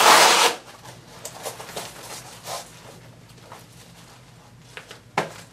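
Handling noise from a body armor vest as its nylon cummerbund is brought around the front: a short loud rasp at the start, then soft rustling of the fabric and straps, and a sharp click about five seconds in.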